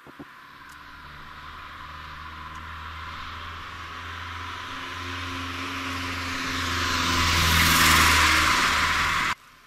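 Car approaching on the road, its engine and tyre noise growing steadily louder and peaking near the end before cutting off suddenly.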